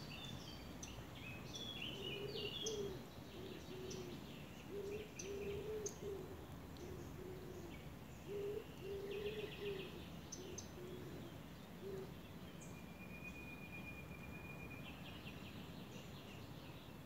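Outdoor birdsong: several small birds chirping and trilling, with one long thin whistle a little past the middle. Through the first two-thirds a lower call repeats over and over in short notes, then stops.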